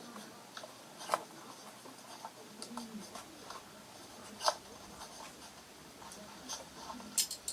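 Quiet handling of paper and cardboard pieces: faint scraping with a few sharp taps, the loudest a little past the middle.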